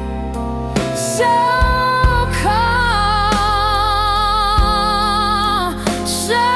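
Slow soulful blues ballad music: long held, wavering melody notes over a steady low bass accompaniment.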